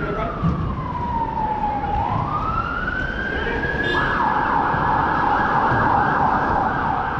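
Emergency vehicle siren: a slow wail that falls and rises again, then switches about four seconds in to a fast yelp.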